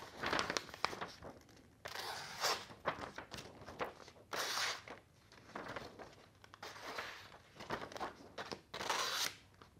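A freshly sharpened kitchen knife slicing through a sheet of paper held in the hand, a series of short papery rustles and swishes as the blade cuts: a paper-slicing test of the edge.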